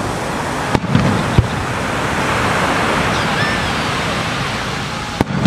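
Fireworks shells bursting overhead: a few sharp bangs about a second in and again near the end, over a steady rush of sea waves breaking on the shore.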